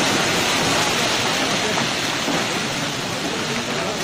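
Steady rushing of a landslide torrent: muddy floodwater and debris pouring down a wooded hillside.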